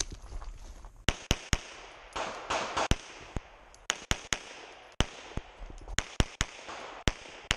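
Atlas Titan 9mm pistol firing a stage string: about fifteen sharp shots in quick pairs and threes, with short pauses between the groups.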